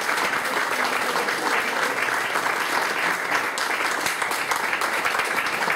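Audience applauding: steady, dense clapping from a room full of people.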